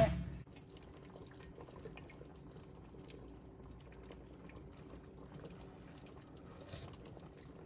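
Chicken adobo's soy-and-vinegar sauce simmering gently in a stainless steel stock pot: faint, steady small bubbling and popping.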